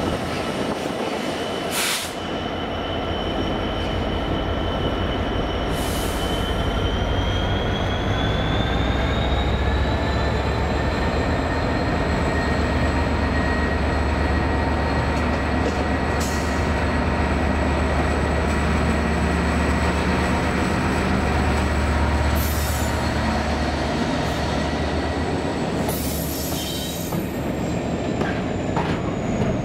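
Class 66 diesel-electric freight locomotive, with its EMD two-stroke V12, hauling a container train past at close range: a deep engine rumble, with a high whine that rises in pitch a few seconds in. Near the end the container wagons roll by, with occasional clanks.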